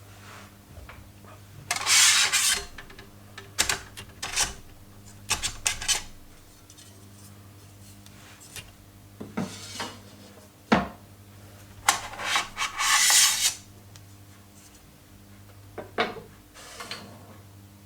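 Metal side panels of a small-form-factor PC case being pulled off, with scraping rubs and sharp clicks and knocks; the longest scrapes come about two seconds in and again around twelve to thirteen seconds in.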